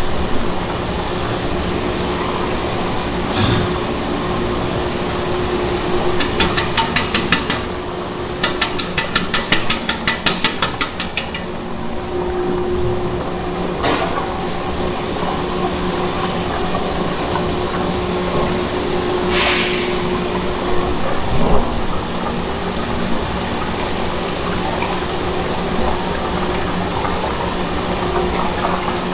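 Large industrial bowl mixer running with a steady hum as it churns fish paste. About six seconds in come two runs of rapid clicking, and a few single knocks sound now and then.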